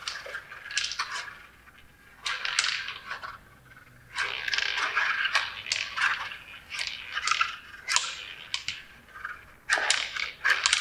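Klask game in play: the magnetic strikers scraping and sliding across the board, the ball rolling and clacking off them and the walls, with many sharp clicks, in quick clusters separated by short pauses.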